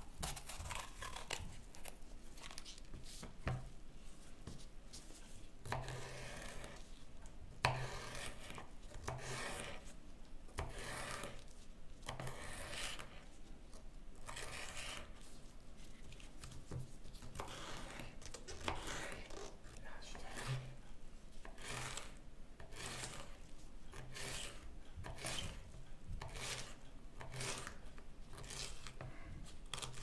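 Kitchen knife slicing and then dicing a green capsicum (bell pepper) on a wooden cutting board: a run of short, crisp knife strokes through the pepper, each meeting the board, about one to two a second and coming faster later on.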